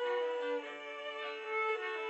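Background music: a violin playing slow, held notes that change a few times.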